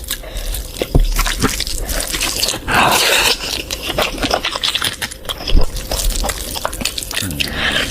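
Wet close-up eating sounds of curry being eaten: chewing and lip-smacking made of many small sharp wet clicks, with a louder squelchy burst about three seconds in.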